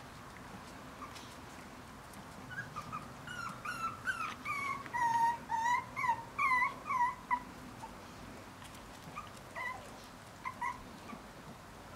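Five-week-old Bolonka Zwetna puppies whimpering and yipping: a quick run of short, high whines that bend up and down in pitch, loudest in the middle, then a few more near the end.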